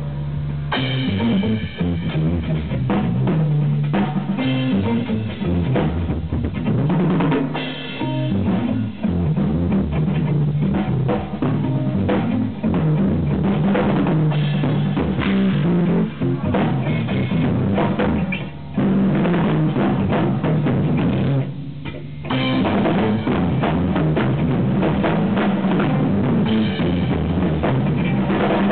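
Live jazz-rock fusion band playing, with a busy drum kit out in front of electric guitar and bass. The recording is overdriven and distorted, and the highs are cut off. The band drops out briefly twice, about two-thirds of the way through.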